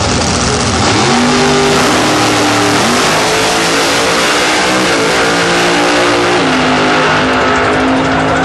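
Pro Mod drag cars, among them a Pro Mod Dodge Viper, running at full throttle down the drag strip. It is loud and steady, and the engine pitch climbs, then drops at gear shifts about three seconds and about six and a half seconds in.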